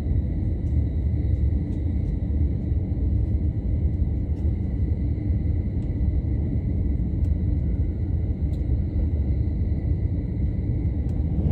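Electric commuter train running at speed, heard from inside the passenger car: a steady low rumble with occasional faint clicks.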